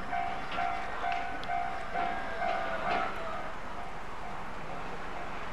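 Japanese railway level crossing's electronic warning bell ringing in even strokes about twice a second, fading after about three seconds.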